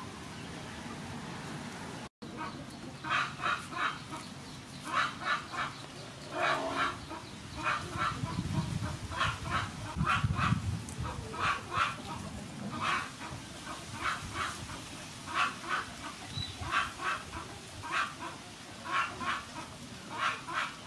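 Birds calling in quick runs of two to four short notes, the runs repeating about once a second from about two seconds in.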